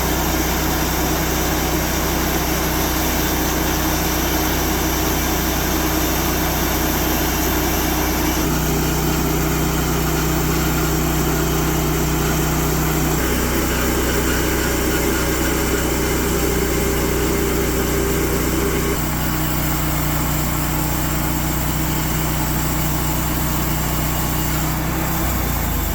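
Sawmill engine running steadily. Its drone shifts abruptly in pitch several times, about a third of the way in, near halfway, and near the end.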